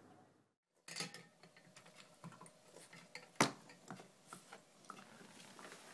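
Corgi puppy moving about on a tile floor: a run of small, irregular clicks and clinks, starting about a second in, with one sharp knock about three and a half seconds in.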